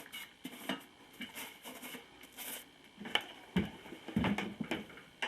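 Soapy water being rubbed around the bead of a garden tractor tire: light, irregular taps and rubbing, with a few louder knocks in the second half.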